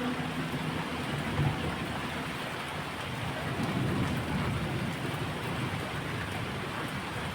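Heavy rain falling steadily, an even hiss of water. There is a brief thump about a second and a half in, and a low rumble swells up near the middle.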